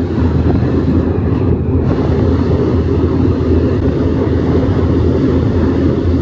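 Steady low rumble of a car ferry underway, its engines and hull noise droning evenly.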